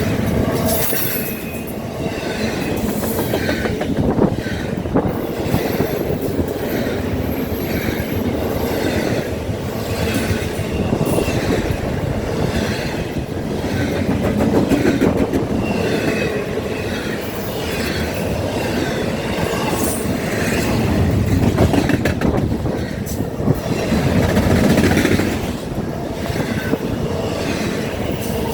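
Norfolk Southern intermodal freight train's cars rolling past at speed: a steady wheel rumble with repeated clacking over the rail joints and occasional high-pitched wheel squeal.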